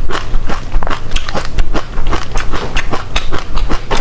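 Close-miked mouth sounds of eating passion fruit: wet chewing and smacking of the pulp, heard as a quick, irregular run of crackly clicks, several a second.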